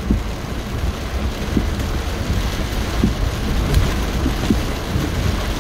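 Heavy rain pelting a car's windshield and roof, heard from inside the moving car over a steady low rumble.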